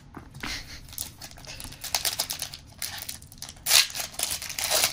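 Trading cards being handled and sorted on a playmat: quick papery flicks and slides of card stock, with a louder rustle a little under four seconds in.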